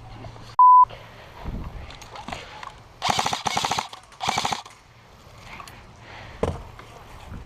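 Two bursts of rapid airsoft gunfire, the first lasting just under a second and the second about half a second, a second apart, around three and four seconds in. Just under a second in there is a short, loud censor beep at a single tone.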